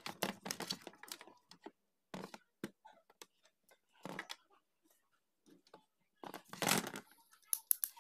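Hands handling a mixer grinder's plastic housing and wiring: scattered small clicks, rustles and plastic knocks, with a longer, louder rustle and scrape near the end as the base cover is brought back over the body.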